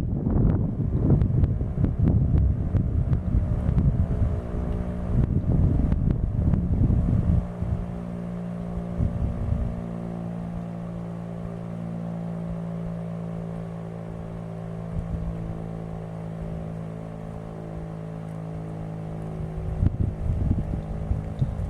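Wind buffeting the microphone, easing off about seven seconds in to leave a steady low hum with overtones, then gusting again near the end.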